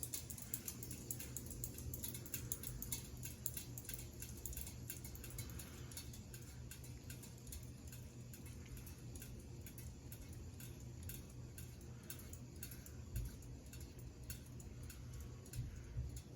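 Hunter Balboa ceiling fan running on high in reverse: a steady low motor hum with a rhythmic ticking over it.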